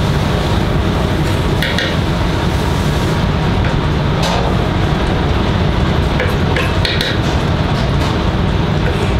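A knife chopping fresh tarragon on a cutting board, heard as a few scattered sharp taps over a steady, loud, low rumble.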